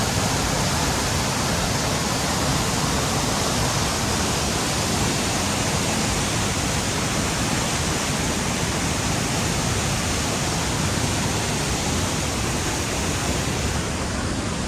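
Steady rushing of a fast-flowing mountain stream.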